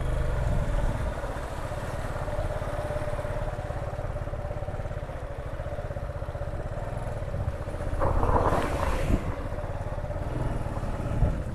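Motorcycle engine running at low speed as the bike rides slowly through floodwater, a steady low rumble with a constant whine above it. A brief louder rush of noise comes about eight seconds in.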